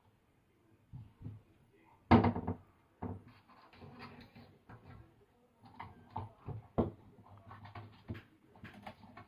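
Knocking and scratching against a wooden door or cupboard: a couple of soft knocks, a loud thump about two seconds in, then a long run of light clicks and scrapes.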